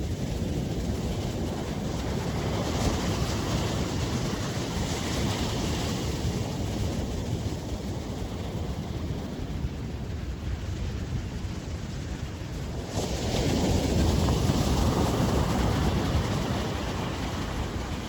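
Ocean surf washing onto a beach, with wind rumbling on the microphone. The surf swells twice, the louder surge starting about 13 seconds in.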